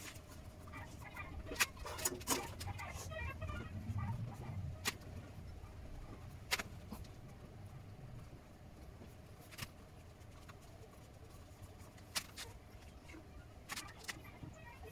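Scattered sharp clicks, knocks and creaks of a composite horn bow and its wooden bending jig as the limb is levered open for the first time, with long quiet gaps between them.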